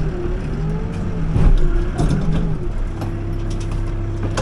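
Backhoe engine running under load while digging, its pitch sagging briefly as it works, with scattered clanks and knocks from the bucket and linkage.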